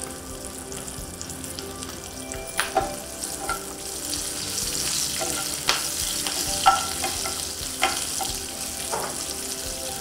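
Curry leaves and slit green chillies sizzling in hot oil in a nonstick frying pan, a tempering being fried, stirred with a steel ladle that clicks against the pan every second or so. The sizzle grows louder about four seconds in.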